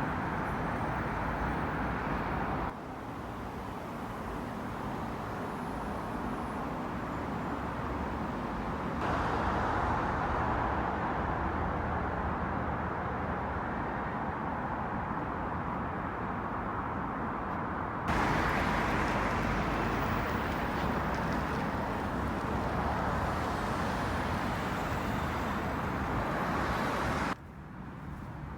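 Steady road traffic noise from a city street, changing abruptly several times as one clip of street sound gives way to the next.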